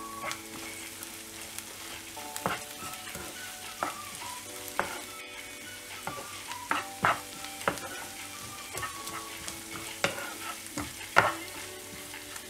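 Chopped onions with coriander and curry leaves frying in a nonstick pan, stirred with a wooden spatula: a steady light sizzle with a sharp scrape or tap of the spatula on the pan every second or two.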